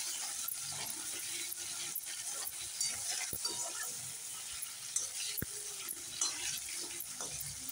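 Potato cubes sizzling in hot oil in a steel kadhai, a steady high hiss, while a slotted metal spatula stirs them with scattered clicks and scrapes against the pan.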